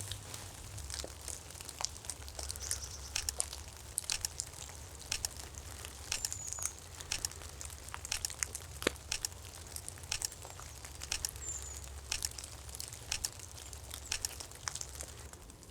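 Soft, irregular crackling and ticking, a few clicks a second, with two brief faint high chirps near the middle.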